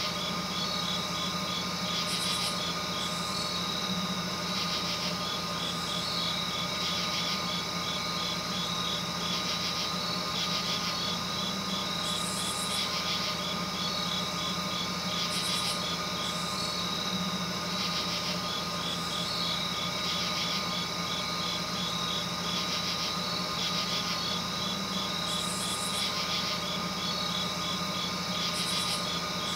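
Night insects calling: trains of rapid, high ticking pulses, with short higher buzzes every few seconds, over a steady low hum.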